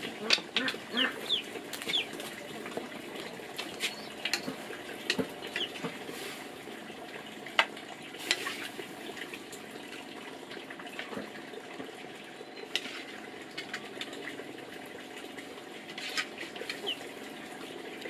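Chickens on a farm, with scattered clucks and short chirps over a steady background and occasional clicks.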